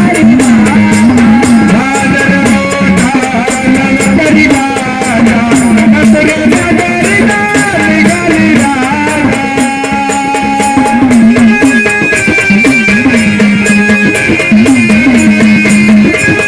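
Marathi devotional folk music of a Waghya troupe: a fast, even beat of drum and jingling percussion under a wavering melody with held notes.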